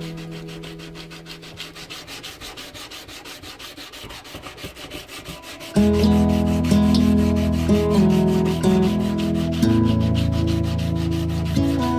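Hand sanding of a steel knife blade with sandpaper, in quick, even back-and-forth strokes. Instrumental background music with held notes comes in loudly about six seconds in and covers the sanding.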